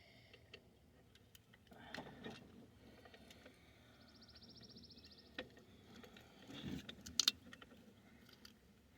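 Faint scattered clicks and handling noises of working a deeply set fishing hook out of a caught fish, with a short fast rattle about four seconds in.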